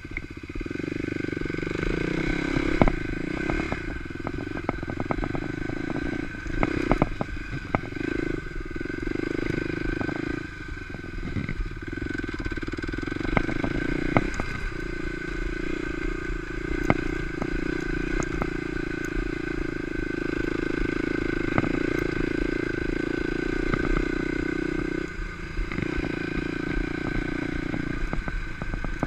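A Kawasaki KLX250 dirt bike's single-cylinder four-stroke engine running under way on a rough dirt trail, its note dropping off briefly several times before pulling again. Frequent knocks and rattles come from the bike over the rocky ground.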